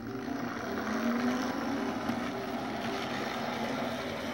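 Model train locomotive (a Baltimore and Ohio diesel model) running along the layout under power: a steady electric-motor whir with wheels rolling on the rails, its hum rising slightly about a second in as it picks up speed.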